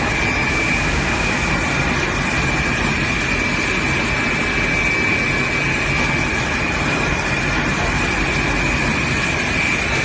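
Steady drone of workshop machinery, an even rushing noise with a thin, constant high whine, with no strokes or changes.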